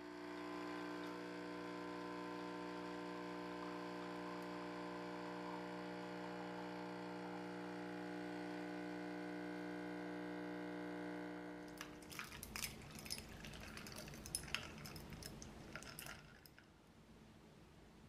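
A De'Longhi espresso machine's vibration pump hums steadily while it pulls a shot of espresso. The hum cuts off suddenly about twelve seconds in and is followed by a few seconds of light clicks and clinks.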